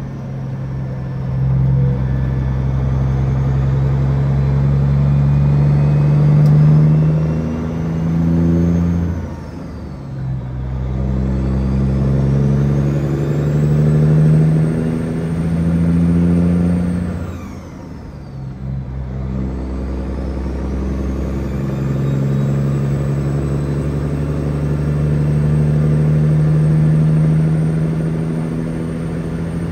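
Peterbilt 379's diesel engine heard from inside the cab as the truck pulls away and works up through the gears. The engine pitch climbs, drops twice at gear changes, about ten and eighteen seconds in, and climbs again, with a faint high whistle rising and falling along with it.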